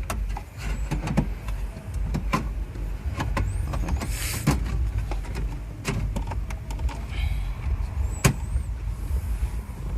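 Car stereo and its wiring being pushed by hand into the dashboard opening: scattered plastic clicks and knocks with a brief scraping rustle about four seconds in, over a steady low rumble.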